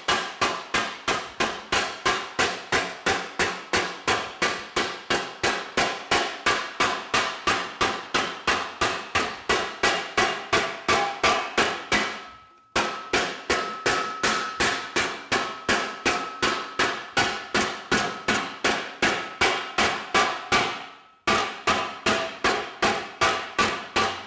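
Oak slapper striking a shaped aluminium panel in a fast, steady run of blows, about four a second, smoothing out knots and bulges in the metal. The panel rings a little after the strikes, and the slapping stops briefly twice.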